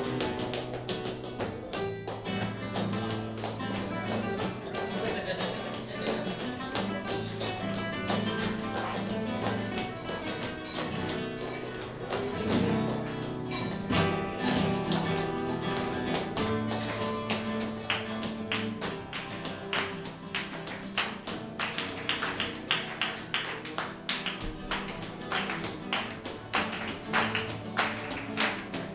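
Two nylon-string flamenco guitars playing together, with rhythmic hand clapping (palmas) coming in over them in the second half.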